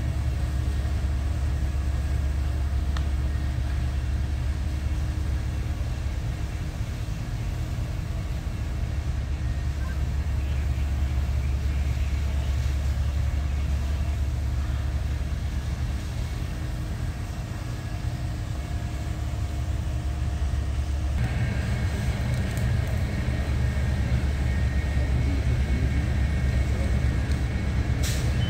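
Fire apparatus engine and pump running steadily: a deep, continuous rumble with a steady hum. About two-thirds of the way through the sound gets fuller, with higher whining tones joining in. A single sharp snap comes near the end.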